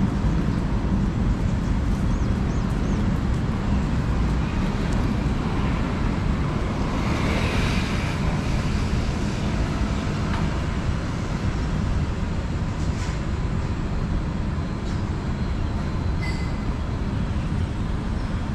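Steady roadside traffic rumble, with a brief louder hiss about seven seconds in.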